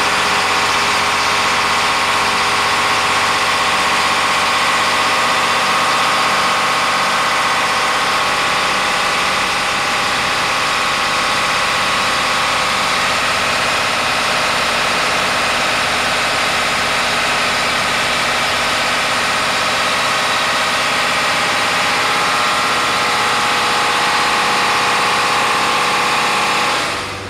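Mitsubishi marine diesel engine running steadily, heard up close in the boat's engine compartment.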